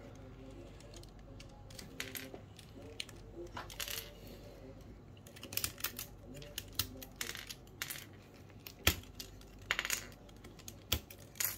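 Keychron K3 keyboard being taken apart by hand: scattered clicks and light clatter of small hard plastic and metal parts and tools, coming in little clusters and growing busier about halfway through.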